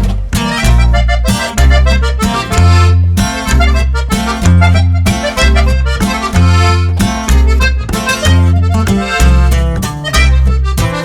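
Background music: an upbeat track with accordion-like melody over a strong bass beat pulsing about every 0.6 seconds.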